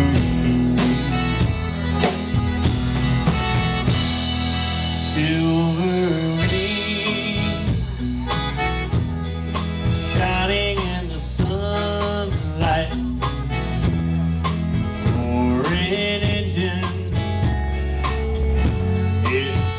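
Live country band playing, with accordion, guitars and drum kit.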